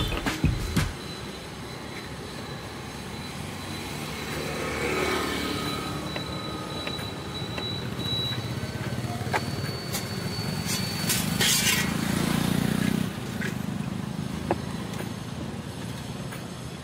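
Roadside traffic running steadily, with a louder stretch of passing traffic near the end. A thin high whine holds for several seconds through the middle, and there are a few sharp clicks.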